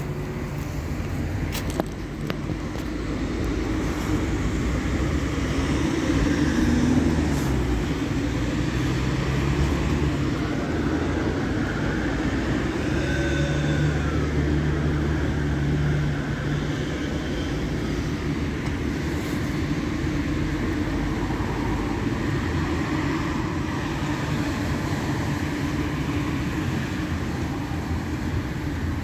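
Automatic tunnel car wash running: motors hum steadily under the rush of spinning brushes and spraying water, with a brief high whine about halfway through.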